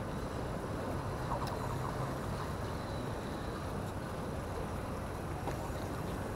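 Steady low rumbling outdoor background noise, with a few faint clicks.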